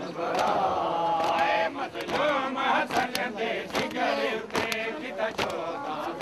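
Many men's voices chanting together in a mourning lament, with scattered sharp slaps at irregular moments.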